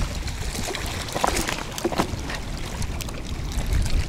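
Small, irregular water splashes in shallow water among stones as a hooked crucian carp is drawn in to the bank, with a low wind rumble on the microphone.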